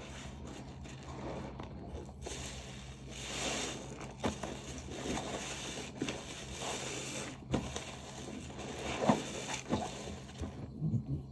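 A dish sponge loaded with dish soap being squeezed and worked, the suds crackling and squishing in swelling waves with scattered sharp ticks.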